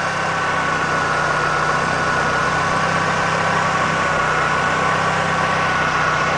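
Eagle Talon DL's 4G37 four-cylinder engine idling steadily, heard from underneath the car, with a steady high whine running over it.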